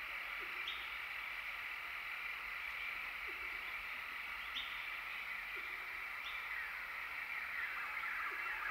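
Dense chorus of birds and insects chirping, with a short high call and a short low note each repeating every second or two.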